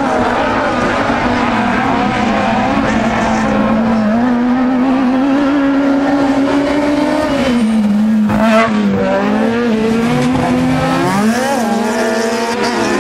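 Autocross race buggies running hard on a dirt track, their engines held high in the revs, the pitch dropping and climbing again with gear changes and throttle lifts. A short sharp crack a little after eight seconds in.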